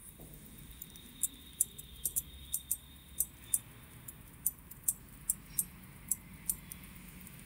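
Small, sharp metallic clicks, irregular, two or three a second, as a fine steel tool works the parts of a watch movement during assembly of a perpetual calendar mechanism.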